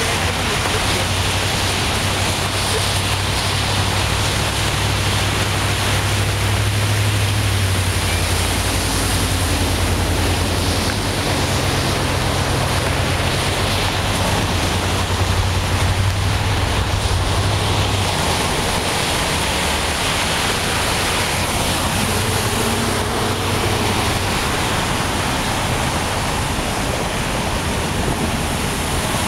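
Steady rushing water noise of vehicles driving through knee-deep floodwater, throwing up spray, with a low engine hum through the first half.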